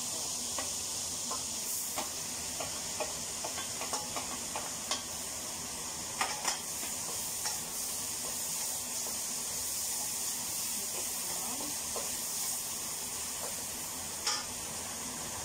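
Crushed ginger and garlic sizzling in hot butter in a stainless steel wok, with a wooden spatula clicking and scraping against the pan as it is stirred. A couple of louder knocks come a little over six seconds in and again near the end.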